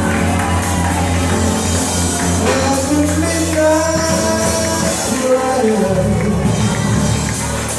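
Live church praise music: keyboard chords with a tambourine jingling and a voice singing over it through the sound system.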